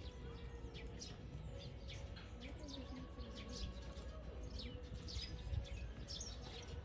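Small birds chirping: many short, high, falling chirps scattered throughout, over faint outdoor background noise.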